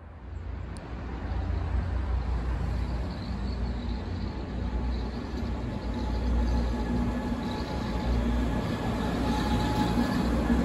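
Stuttgart line 10 rack-railway tram running across a concrete bridge: a steady rumble with a low hum and a faint whine that grow louder in the second half.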